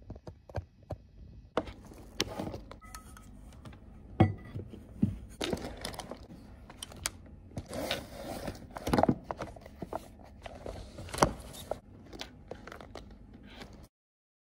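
Handling noise of a laptop being taken from a fabric sleeve and set up on a hard table: rustling of the sleeve with sharp knocks and clicks of the laptop against the tabletop. It cuts off suddenly near the end.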